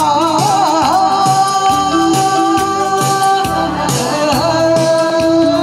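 A woman singing into a microphone over amplified band accompaniment. The melody wavers in pitch at first, then settles into long held notes.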